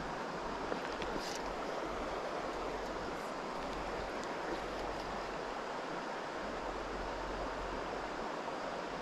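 River water flowing over a stony bed, a steady even rush, with a faint tick or two about a second in.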